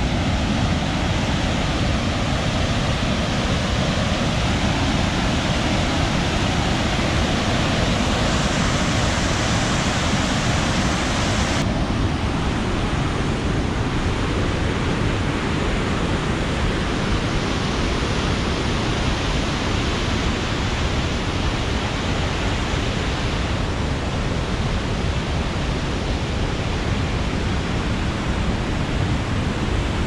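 Popo Agie Falls running at high snowmelt flow: a loud, steady rush of falling water. About twelve seconds in it turns abruptly to a slightly duller rush.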